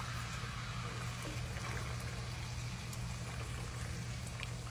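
Melted butter and hard caramel candies sizzling and bubbling steadily in a hot cast iron skillet, with a few light ticks of a plastic slotted spatula stirring them, over a steady low hum.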